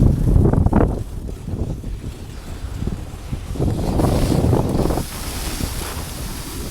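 Wind buffeting the microphone in gusts, a rumbling roar that rises and falls.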